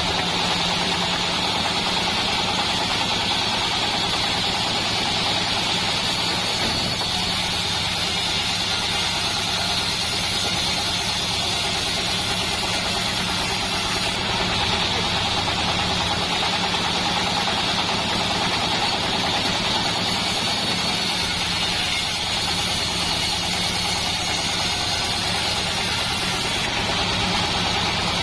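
Engine-driven bandsaw mill running steadily, a constant engine drone with an even hiss higher up and no breaks.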